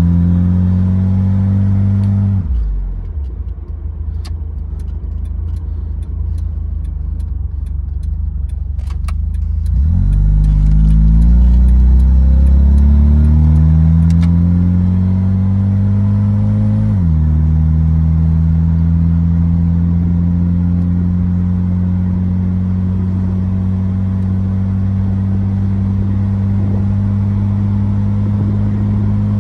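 1979 Fiat Spider 124 2000's twin-cam four-cylinder pulling through its ANSA muffler, heard from the open cabin: revs rise, then fall away about two seconds in, and a quick run of ticks sounds while it coasts. From about ten seconds in the engine pulls again with climbing revs, drops in pitch at an upshift around seventeen seconds, and then cruises steadily.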